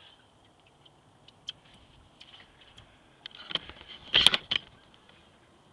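Camera handling noise: scattered faint clicks, then a burst of loud knocks and rubbing about four seconds in as the camera is picked up and moved.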